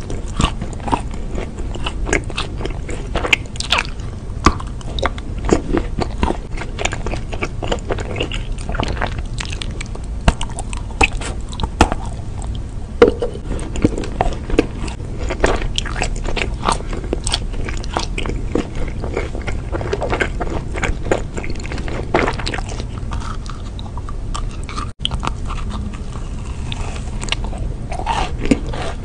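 Close-miked eating: biting and chewing chocolate-coated sweets, with many small, sharp, irregular crunches.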